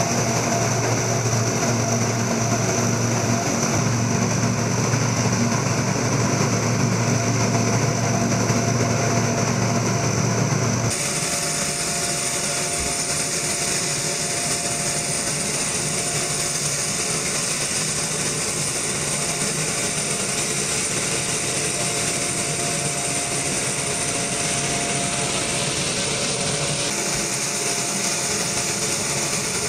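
Military cargo plane's turboprop engines running steadily, a low hum with steady whining tones. About eleven seconds in the sound changes abruptly to a harsher hiss with a high-pitched whine, which carries on steadily.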